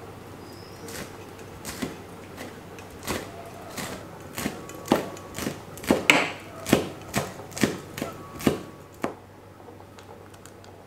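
Kitchen knife chopping red chili peppers on a cutting board: a quick, uneven series of about seventeen chops, roughly two a second, loudest in the middle and stopping about nine seconds in.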